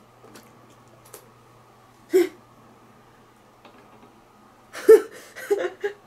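Swimming goggles being pulled on and adjusted, with faint rustling handling sounds over a low steady hum. There is one short louder sound about two seconds in, and a few short vocal noises near the end.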